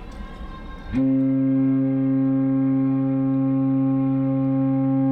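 Cruise ship Royal Princess's horn sounding one long, steady, deep blast of about four seconds, starting about a second in, as the ship departs port.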